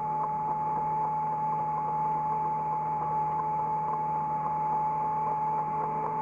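Hydraulic excavator running steadily, heard from the operator's cab: a constant drone with a steady high whine over it.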